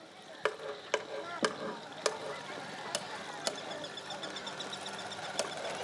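A series of sharp knocks, about half a second apart at first and then more sparsely, over a steady outdoor background. A faint, rapid, high ticking sets in during the second half.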